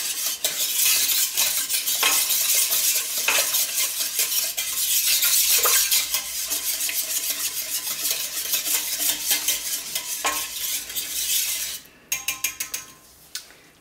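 Whisk beating thickening soap batter in a pot in rapid strokes, stopping about twelve seconds in, followed by a few light taps.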